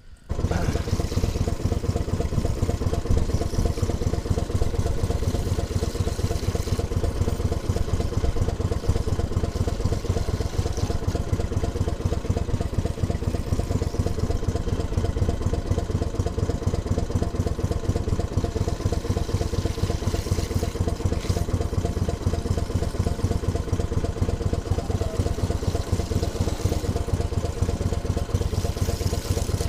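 Small boat engine running steadily with a rapid, even firing beat; it cuts in abruptly at the start.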